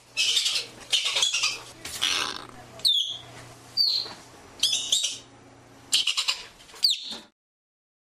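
Ground squirrel (Spermophilus) giving a series of short, sharp chirping and squawking calls in clusters, some sliding down in pitch.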